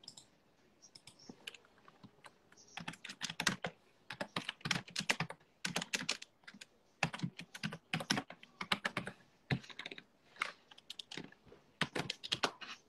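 Typing on a computer keyboard: a few scattered key clicks at first, then quick runs of keystrokes in bursts with short pauses between them.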